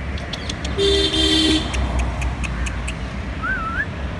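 A vehicle horn honks once briefly, about a second in, over a steady low rumble of road traffic. Near the end a bird gives a short wavering whistle.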